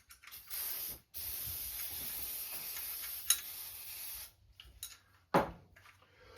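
Aerosol can of ether spraying: one short hiss, then a steady hiss lasting about three seconds. A single knock follows near the end.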